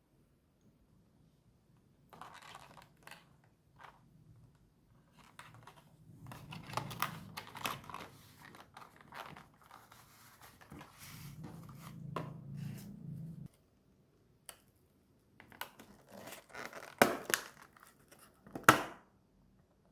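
Convenience-store food packaging being torn open and crinkled, with scattered scrapes and clicks, and two sharp louder clicks near the end.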